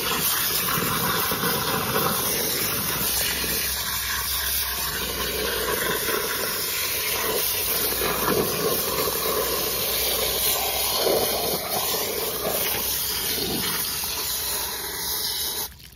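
Garden hose spray nozzle jetting water into a muddy hole, a steady hiss and splash of water on wet soil as it washes dirt away from a buried aluminum casting. The spray cuts off suddenly near the end.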